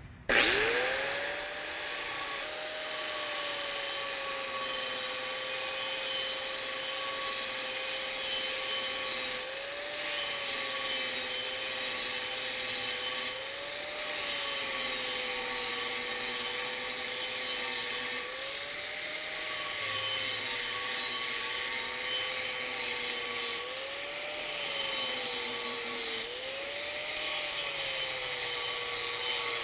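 DeWalt angle grinder spinning up with a rising whine, then grinding into a weld on steel pipe with a steady whine and grinding hiss. The pitch dips and recovers several times as the wheel is pressed in and eased off. The wheel is digging out weld metal to find slag and porosity.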